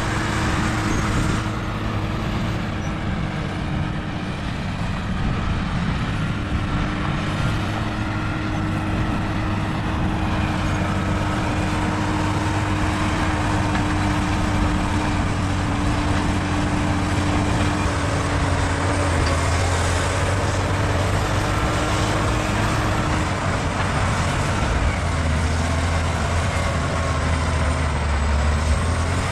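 Bulldozer's diesel engine running steadily under load, its low note dropping lower near the end.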